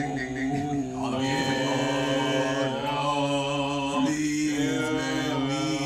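Music with long, held, chant-like vocal notes that slide between pitches over a steady low drone.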